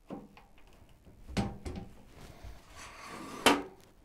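A plywood board being handled on a table saw's top: a few knocks, a sliding rub, and a last sharp knock, the loudest, about three and a half seconds in.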